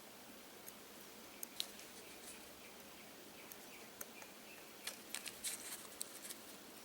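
Faint, scattered small clicks and crackles as hot desoldering tweezer tips are worked against solder, bunching into a quick run of clicks about five seconds in.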